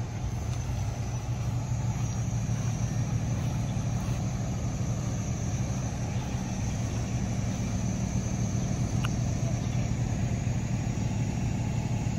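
Parked fire apparatus idling: a steady low engine hum, with a faint, steady high-pitched whine above it.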